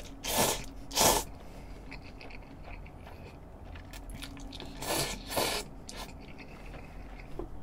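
A person slurping spicy stir-fried cup noodles in two pairs of quick, noisy slurps, one pair about half a second in and another about five seconds in, with quieter chewing between.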